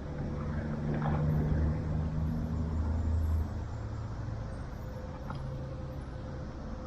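A low engine hum that grows louder and then falls away about three and a half seconds in, over steady background noise.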